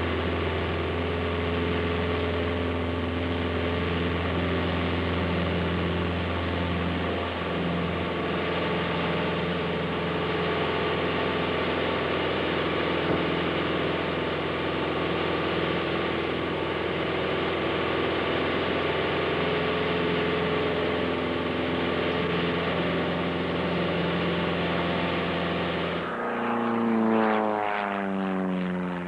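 Propeller aircraft engine droning steadily in flight, a low hum with a steady stack of engine tones. About three seconds before the end the sound swells and its pitch falls, like a plane passing by.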